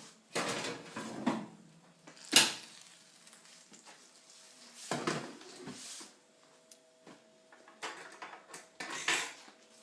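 Kitchen handling sounds as a cooking dish is taken out of the oven: bursts of rustling and knocks, with one sharp metallic clatter about two and a half seconds in and more clinks near the end, over a faint steady hum.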